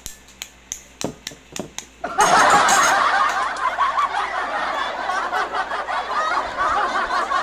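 About eight quick taps of a spoon against a balot eggshell, cracking it open; then, from about two seconds in, loud continuous laughter takes over and drowns the tapping.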